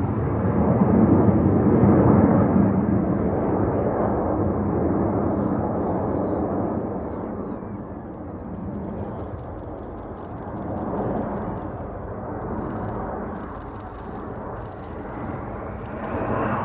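Jet noise from BAE Hawk T1 aircraft, each with a single turbofan, passing in display. It is loudest in the first few seconds, then fades to a quieter, wavering rumble. Near the end a rising whine builds as jets approach again.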